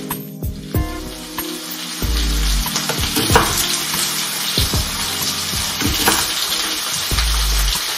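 Sliced raw potatoes and red pepper sizzling as they fry in a pan, a steady crackling hiss, with scattered sharp knife taps on a wooden cutting board.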